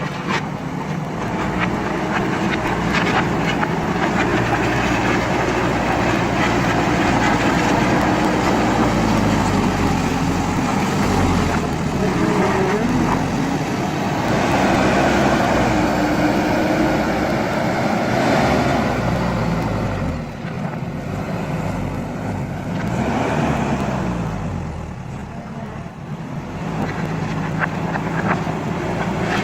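JCB backhoe loader's diesel engine running under working load, its pitch rising and falling several times as the revs change, with scattered knocks and clatter from the bucket working gravel and stone.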